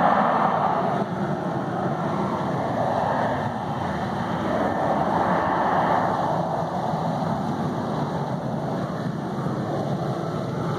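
Jet aircraft climbing away just after take-off: a steady engine roar that swells and eases every couple of seconds.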